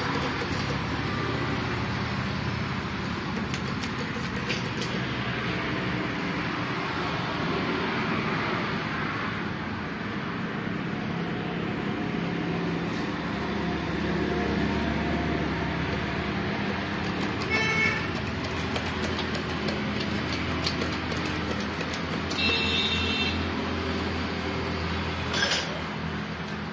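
Steady background vehicle and traffic noise with a low engine hum, with a few short metallic clinks over it, about two-thirds of the way in and again near the end.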